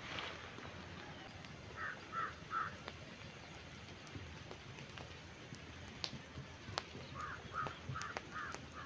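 A pile of dry leaves and rubbish burning, with scattered sharp crackles and pops from the fire. A bird calls in quick runs of short notes, three about two seconds in and five near the end.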